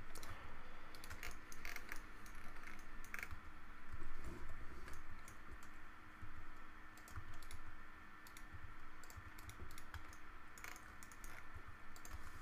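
Computer keyboard keys tapped singly and irregularly as shortcut presses, over a faint steady hum.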